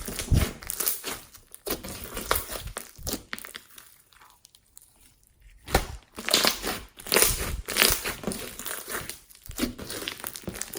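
Hands squeezing, stretching and kneading glossy slime, giving a dense run of irregular clicks and crackles that thins out briefly around the middle and then picks up again.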